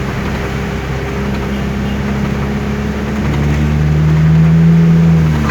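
A motor engine running steadily, with a deeper, louder tone swelling about three seconds in and dropping away just before the end.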